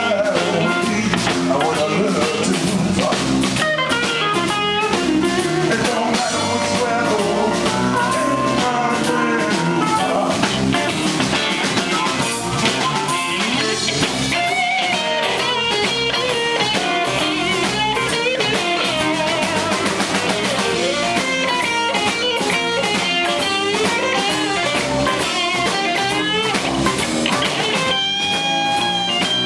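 Electric blues band playing an instrumental break: electric guitars, electric bass and drum kit, with amplified blues harmonica, the lead lines bending and wavering in pitch.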